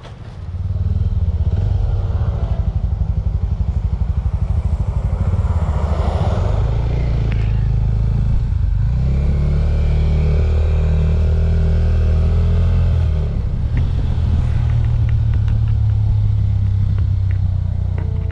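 Suzuki 250 cc motorcycle engine pulling away and riding along, a steady low engine note that swells up about half a second in. The note changes pitch about eight and a half seconds in, then runs on steadily.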